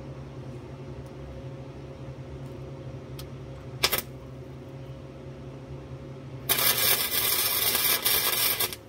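Wire-feed welder arc: a brief tack just before four seconds in, then a loud, crackling weld bead of about two seconds near the end that stops abruptly. A steady low hum runs underneath.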